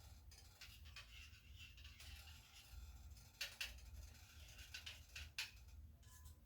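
Faint light clicks and scrapes of kitchen utensils, with two sharper taps about three and a half and five and a half seconds in, over a low steady hum.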